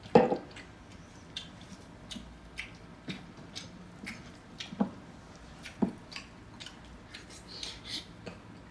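Close-up eating sounds: chewing with soft wet smacks and small irregular clicks, a few sharper ones now and then.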